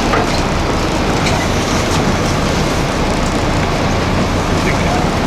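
Steady loud rumble and hiss of a fishing boat's engine running, with a constant low hum under wind and water noise.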